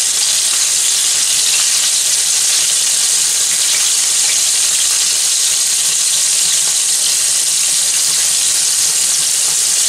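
Flour-dredged grey snapper steaks sizzling steadily as they shallow-fry in hot oil in a frying pan, a continuous high hiss.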